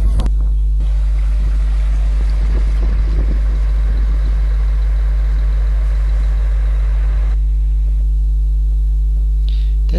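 Motor-driven salvage pumps running with a steady hum while emptying water from a sunken wooden boat. A rushing, hissing noise lies over the hum and stops about seven seconds in.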